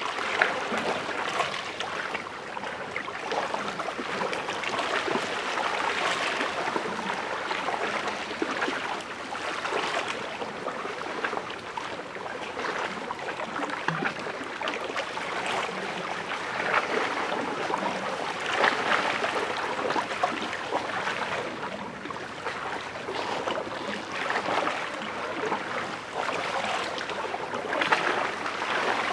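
Small lake waves lapping and splashing against shoreline rocks: a steady wash of water that swells and eases irregularly.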